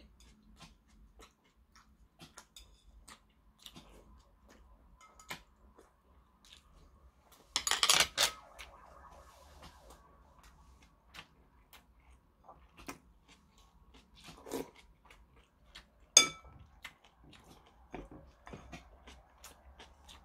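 Metal spoon scraping and clinking against a ceramic bowl during a meal, with soft chewing between. A louder clatter of several strokes comes about eight seconds in, and a sharp clink that rings briefly about sixteen seconds in.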